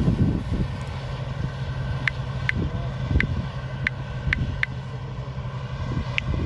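Harvesting machine's engine running with a steady low rumble. From about two seconds in, short high chirps repeat every half second or so.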